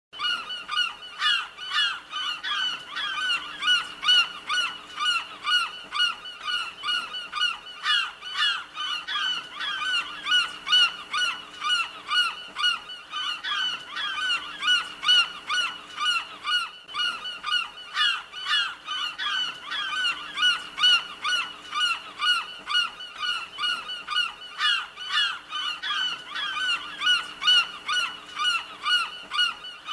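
Seagulls calling: a dense, unbroken series of short, harsh squawks, two or three a second, several birds overlapping.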